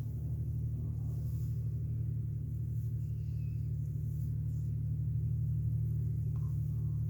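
John Deere 3130 tractor's diesel engine running steadily under load while pulling a plough, an even low drone.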